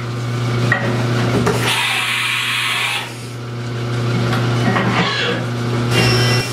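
CNC milling machine running on an aluminium part with flood coolant: a steady machine hum, with a stretch of hissing cutting and spray noise about two seconds in, and a thin high whine near the end.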